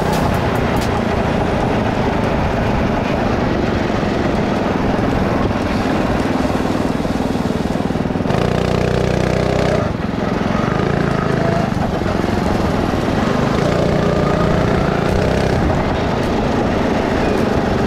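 Small go-kart engine running, its pitch rising and falling as the throttle opens and closes.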